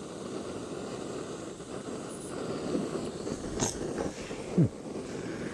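Backpacking gas canister stove burning steadily under a small pot of food. The spoon clinks against the pot about three and a half seconds in, and there is a short, loud sound falling in pitch a little before the end.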